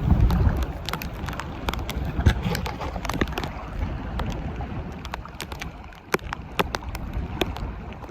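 Wind rumbling on the microphone, strongest in the first moment, with many irregular sharp clicks and taps throughout.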